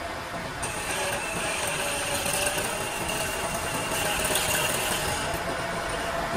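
Metal lathe running steadily, its chuck spinning a steel workpiece. A thin, high whine comes in about half a second in and stops about five seconds in.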